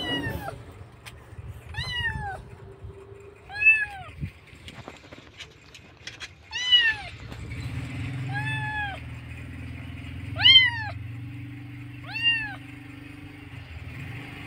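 A kitten meowing loudly and repeatedly, about seven high, arching cries roughly two seconds apart. The uploader takes the meows for a kitten crying for its mother.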